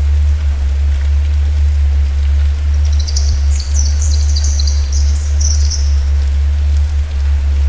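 Steady rain falling on leaves and ground, over a constant deep low rumble. A songbird sings a quick, high twittering phrase for about three seconds in the middle.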